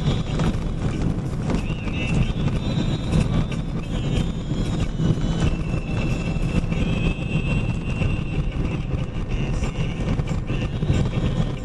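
Box truck driving: steady engine and road noise with frequent rattles and knocks, and a thin high tone that comes and goes.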